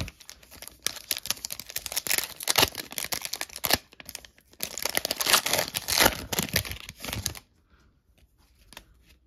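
Foil wrapper of a 2022 Panini Select Draft Picks trading card pack being torn open and crinkled by hand, in two long bouts of crackling, then it stops.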